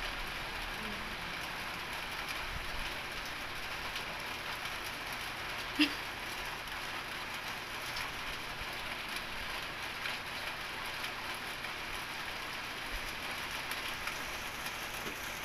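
Steady background hiss, even and unbroken, with a single short click about six seconds in.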